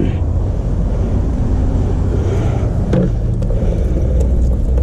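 A steady low rumble with a brief knock about three seconds in.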